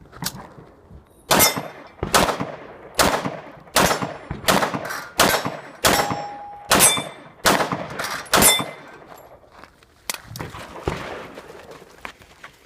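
Pistol shots fired in a quick string, about a dozen, roughly one every half second to second, some with a short metallic ring after them; a few fainter shots follow near the end.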